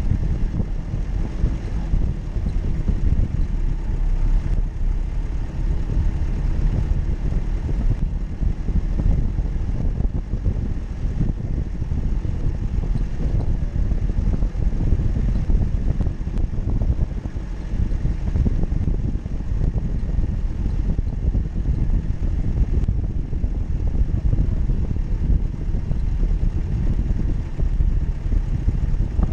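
Jeep Cherokee's engine running off-road, a steady low rumble.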